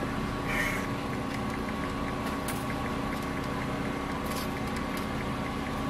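Car engine idling, heard from inside the cabin as a steady hum, with a brief noise about half a second in and a few faint clicks.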